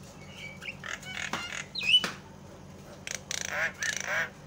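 Javan myna calling: a run of chattering notes, a sharp rising whistle about two seconds in that is the loudest sound, then a harsh, rasping call repeated over the last second and a half.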